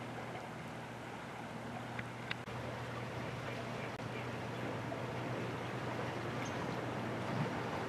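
Steady rushing of a river's current flowing past shelf ice, with a faint low hum underneath.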